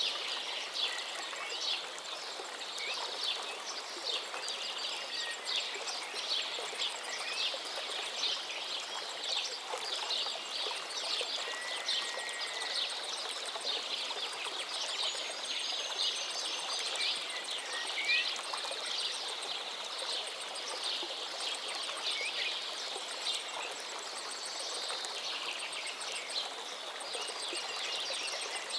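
Many small birds chirping rapidly and continuously in a dense chorus of short, high notes, with a few longer whistled glides. Underneath runs a steady wash of noise like lapping water.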